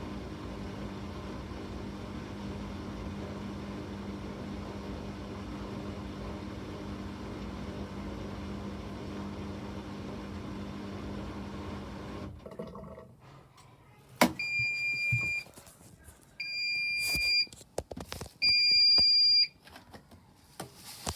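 Bosch washing machine running with a steady hum, which stops about twelve seconds in. A click follows, then three long beeps about two seconds apart: the machine's end-of-programme signal.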